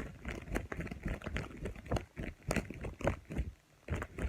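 A pair of leather gloves shaken and slapped together close up, a quick irregular run of flaps imitating a bird's wings beating, about three flaps a second.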